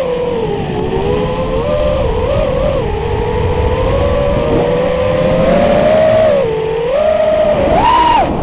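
FPV quadcopter's brushless motors and propellers whining, the pitch rising and falling as the throttle changes, with a quick high rise near the end as the throttle is punched. A rushing noise runs underneath.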